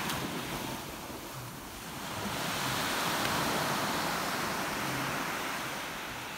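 Ocean surf washing on the shore: a steady rush that dips about a second in, swells again from about two seconds and slowly fades.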